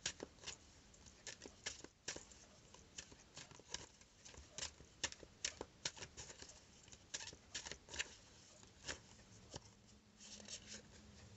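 Oracle cards being shuffled by hand: a faint, irregular run of soft card flicks and clicks, a few each second.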